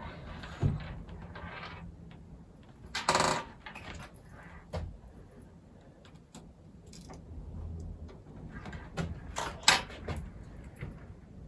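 Scattered small clicks, clinks and knocks of a screwdriver and small metal and plastic laptop parts being handled, with a short louder rattle about three seconds in and a sharp clink near ten seconds.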